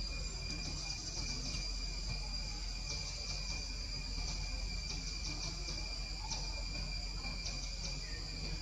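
Steady chorus of insects: several high, continuous trills, some faintly pulsing, over a low background rumble.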